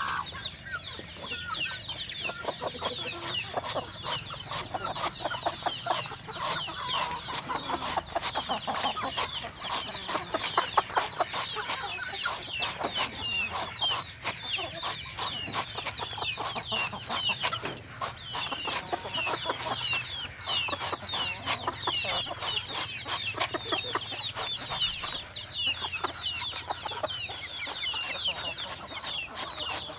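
Chickens clucking with many short, high peeping calls, among a dense run of sharp clicks.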